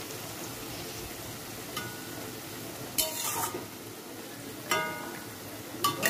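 Vegetables sizzling in ghee in a metal kadai while a metal spatula stirs them, clinking against the pan about four times; the loudest strikes, about three seconds in and near the end, ring briefly.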